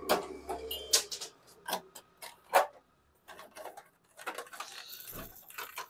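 Irregular plastic clicks, knocks and rattles as the unbolted plastic front fairing and meter cowl of a Bajaj Pulsar 220 are handled and worked loose by hand, with the sharpest knocks about a second in and about two and a half seconds in.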